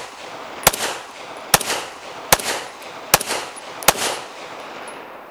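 Five unsuppressed shots from a Springfield XD-M Elite 9mm pistol firing 147-grain subsonic rounds, about one every 0.8 seconds. Each sharp crack trails off in an echo.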